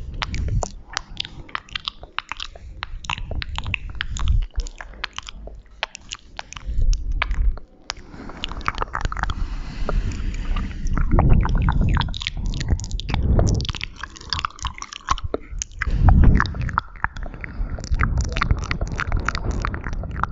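Close-miked ASMR mouth sounds: rapid, irregular wet clicks and smacks of lips and tongue, with a few seconds of breathy hiss about halfway through.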